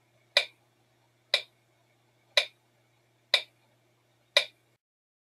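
A clock ticking: five sharp, evenly spaced ticks about a second apart over a faint steady hum.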